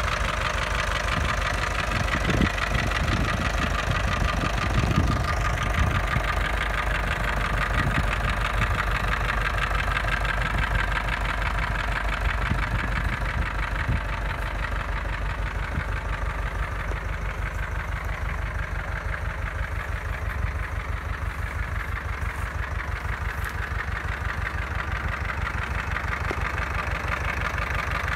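Ursus C-330 M tractor's two-cylinder diesel engine idling with an even beat, with a few low thumps in the first several seconds.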